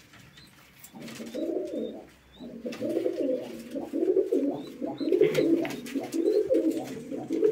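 Domestic pigeon cooing in low, throaty, rolling phrases, starting about a second in. After a short pause it goes on almost without a break.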